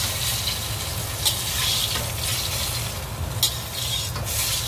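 Chicken pieces sizzling in very hot oil in a steel wok during the second, high-heat fry. A couple of sharp clinks come from the slotted ladle against the wok as the pieces are scooped out.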